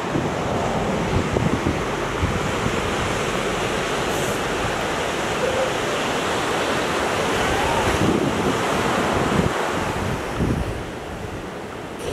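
Ocean surf washing on the beach, with wind buffeting the microphone in low rumbles; the wind noise eases near the end.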